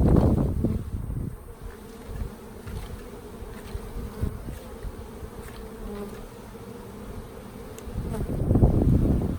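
Honey bees buzzing in a steady hum around an opened hive. A loud low rumble comes at the start and again near the end.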